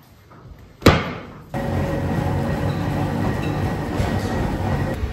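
A single sharp bang about a second in. Then, from about a second and a half in, a treadmill motor and belt run steadily under a runner, with a faint steady whine.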